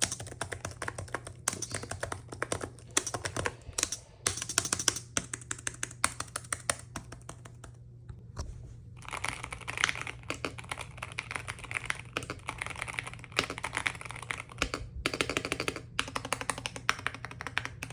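Fast typing on a laptop keyboard: rapid runs of key clicks broken by short pauses, with the clicks sounding brighter about halfway through. A steady low hum sits underneath.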